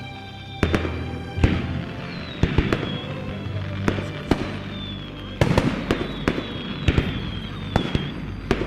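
Fireworks going off: an irregular string of sharp bangs and crackles, with music underneath.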